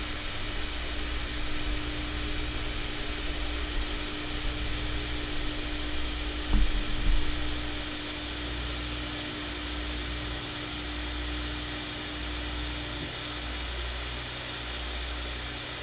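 Creality Ender 2 Pro 3D printer auto-homing: its stepper motors hum with a steady whine that stops about thirteen seconds in, over a steady fan hiss. A brief knock, the loudest sound, comes about six and a half seconds in.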